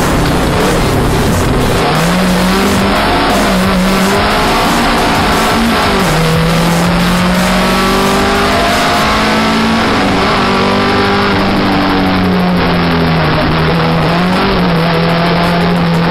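Toyota Starlet KP47 race car's engine heard from the onboard camera, running hard at high revs, its pitch climbing and dropping several times as it goes through the gears and lifts for corners.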